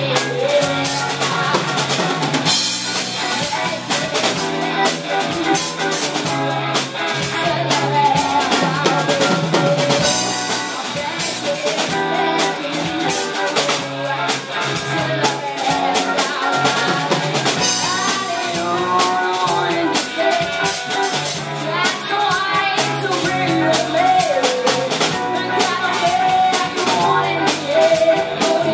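Live band playing: a drum kit keeping a steady beat under electric guitar and bass guitar, with a woman singing lead.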